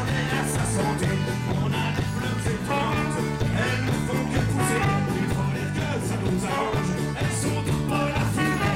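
A band playing live amplified music, with a strong bass line and drums with cymbal hits.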